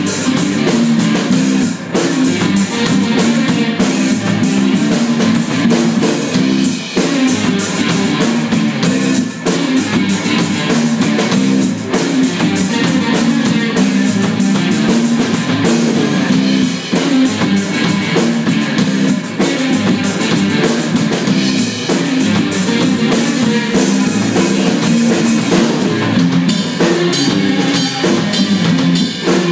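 Live instrumental rock played by a small band: electric guitars over a steady drum-kit beat, with no singing.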